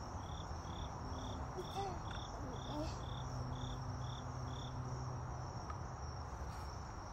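Cricket chirping in a steady rhythm, about two short high chirps a second, pausing about four and a half seconds in. A low steady hum runs underneath.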